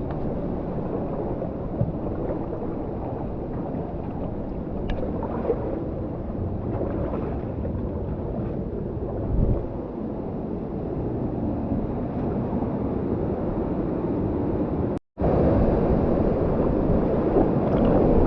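Steady rush of a waterfall and fast-flowing water, with a brief dropout near the end after which the rush is louder.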